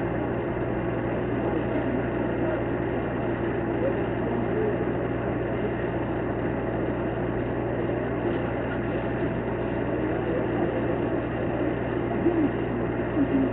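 Steady low rumble of vehicle engines idling, over a constant low hum, with faint indistinct voices under it.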